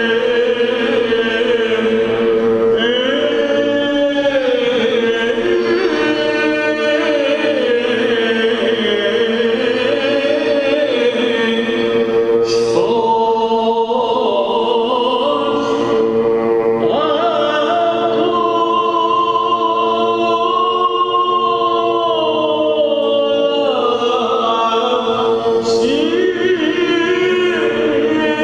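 Greek Orthodox Byzantine chant: a chanter sings a slow, ornamented melody over a steady drone note (the ison) held by the other chanters.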